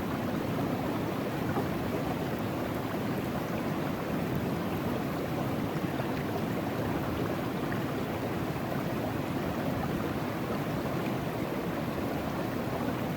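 Steady rush of river water running through a sluice box set in the current.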